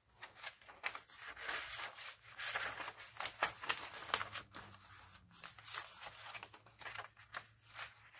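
Paper pages of a handmade junk journal being turned and handled, giving irregular rustles and flaps of paper.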